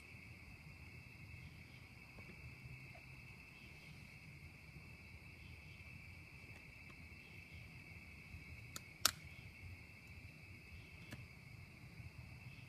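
Faint, steady high trilling of crickets, with one sharp click about nine seconds in.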